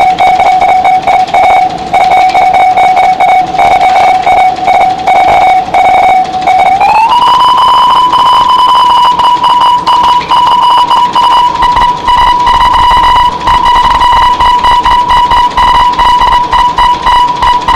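Loud electronic drone tone with overtones and a rapid flutter, sliding up in pitch about seven seconds in and holding at the higher pitch. A low rumble joins about two-thirds of the way through.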